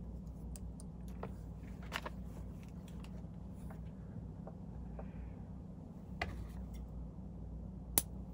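Faint, scattered small clicks and ticks of fingers and tools handling feather and thread at a fly-tying vise, with a sharper click near the end, over a steady low hum.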